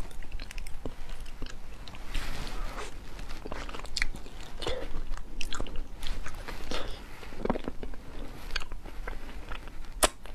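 Close-up mouth sounds of eating soft durian flesh: wet chewing and biting with many quick smacking clicks, and one sharp click near the end.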